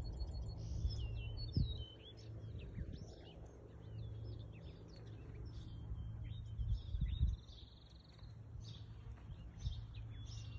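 Several songbirds chirping, with one trill about four to five seconds in, over a steady low rumble that swells louder briefly about one and a half and seven seconds in.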